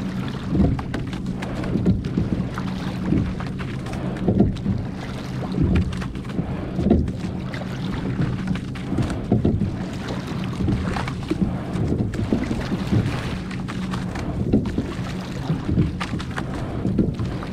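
Coastal rowing boat under way: regular oar strokes with water washing along the hull, one stroke about every second and a half, over a steady low hum.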